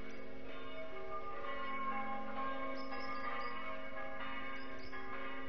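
Bell-like ringing tones: overlapping, sustained notes shifting in pitch over a steady low hum.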